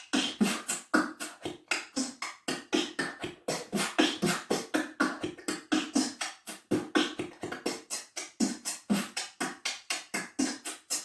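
Beatboxing: an evenly timed run of short percussive mouth sounds, about four to five a second, each sound standing for one digit of pi, so the sounds change from stroke to stroke without a repeating groove.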